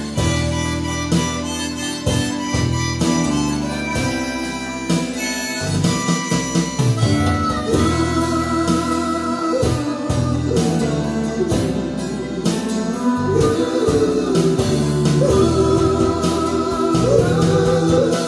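Instrumental break of a Cantonese pop ballad played through a pair of Qinsound LS3/5A bookshelf speakers: a band with a lead melody instrument, which wavers in pitch from about halfway in.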